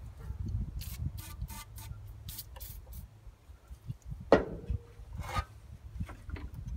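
Aerosol can of PB Blaster penetrating oil being handled: a series of short rattles over the first couple of seconds, then a single sharp knock with a brief ring about four seconds in as the can is set down on a wooden deck.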